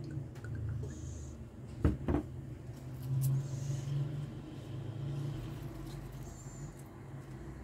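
A steady low hum runs throughout, with two sharp knocks about two seconds in, as tongs and lettuce leaves are handled in a nonstick pot.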